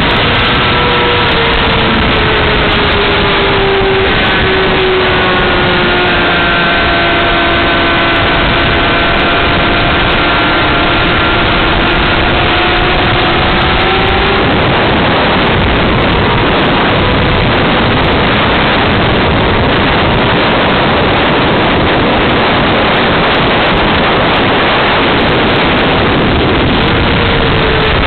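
Onboard sound of a Honda CBR600RR's inline-four engine at track speed, heavily buried in loud rushing wind noise on the camera. The engine note glides slowly down and back up over the first half, is drowned out by the rush from about halfway, and comes back near the end.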